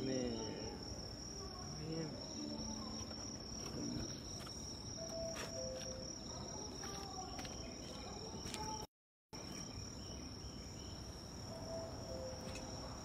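Insects trilling in a steady, high-pitched chorus outdoors at night, with faint voices in the first few seconds. The sound cuts out for about half a second roughly nine seconds in.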